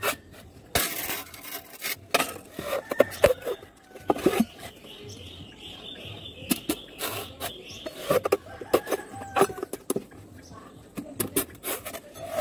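Cutlass (machete) blade worked into the end of a thin green bamboo stalk to split it lengthwise: a run of irregular sharp knocks with wood rubbing in between.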